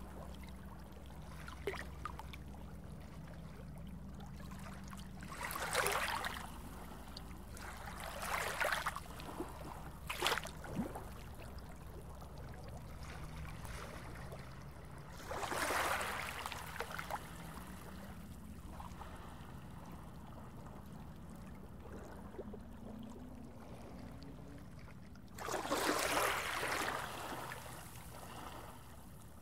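Underwater water-ambience sound effect: a steady low hum with swells of rushing water that rise and fade about five times, the longest near the end.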